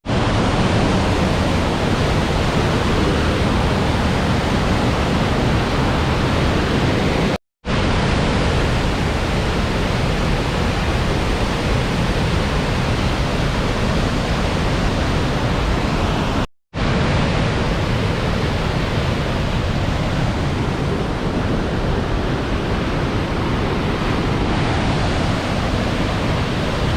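Yuba River rushing at high flow after early winter storms: a loud, steady roar of water, broken by two short silent cuts about a third and two thirds of the way through.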